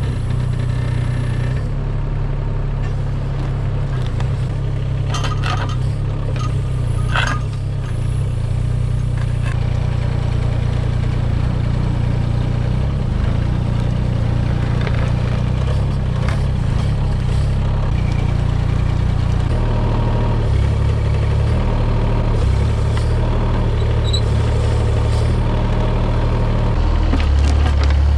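Mini excavator's diesel engine running steadily under working load, with a few sharp knocks about five to seven seconds in and the engine getting a little louder near the end.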